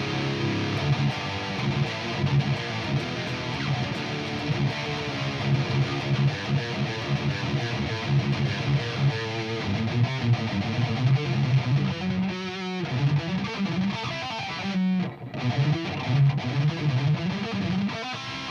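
Overdriven electric guitar played through an SLO-clone tube amp with a Keeley-modded Maxon OD808 overdrive, close-miked with a Shure SM57: heavy distorted low-string riffing with chords and single notes, pausing briefly about fifteen seconds in.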